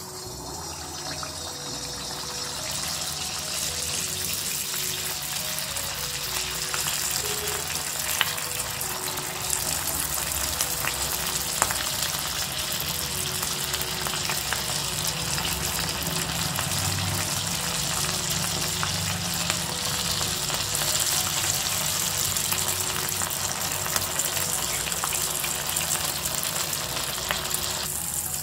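Idli-batter-coated moong dal balls (suyam) deep-frying in hot oil: a dense, steady sizzle that builds over the first few seconds as the balls go in, with an occasional sharp pop.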